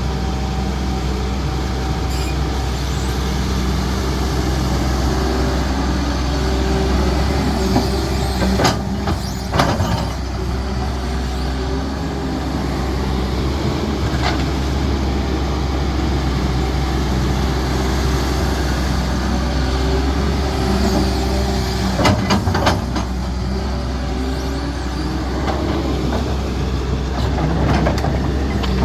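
Diesel engine of a CAT 320D excavator running steadily under work, with a few sharp knocks or clanks: two about a third of the way in, a cluster about three-quarters of the way in and more near the end.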